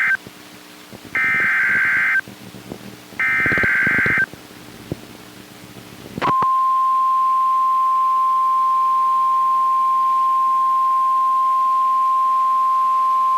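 Emergency Alert System SAME header: the tail of one burst, then two more roughly one-second bursts of shrill buzzy data tones about a second apart. Then, about six seconds in, the steady single-pitch NOAA Weather Radio 1050 Hz alert tone starts and holds. It is the signal that a new warning message follows.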